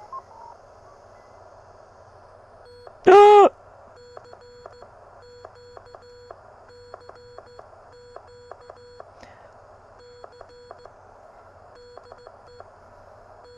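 Receiver hiss from a pocket uSDX-clone HF transceiver, broken up by its CW sidetone, a low steady tone keyed on and off in uneven dits and dahs as a button is tapped to send Morse, with a small click at each change. About three seconds in, a loud short tone bends up in pitch and back down.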